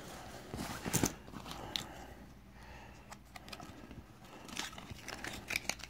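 Leather vest being handled and turned open: faint rustling of the leather with scattered short clicks, the loudest about a second in and a few more near the end.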